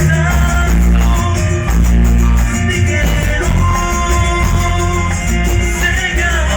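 Recorded cumbia music with a strong bass line and melody playing steadily.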